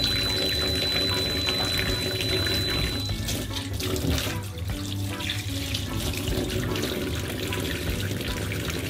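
Kitchen tap running into the sink while okra pods are rinsed under the water.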